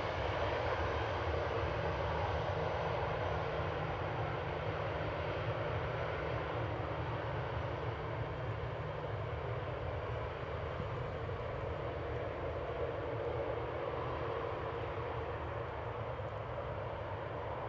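Airbus A320-211's CFM56-5A1 jet engines in reverse thrust during the landing rollout. The jet noise is steady and fades slowly as the airliner slows and moves away.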